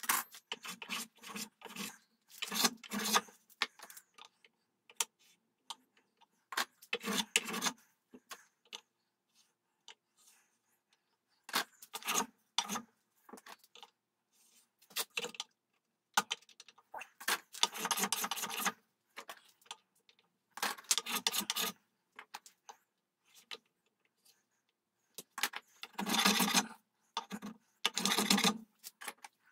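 Long flat file drawn back and forth over a wooden rifle stock, giving irregular rasping strokes of half a second to two seconds with pauses between them.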